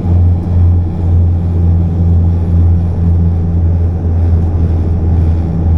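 Small propeller plane's engines droning steadily: a loud, even low hum with a deep constant tone.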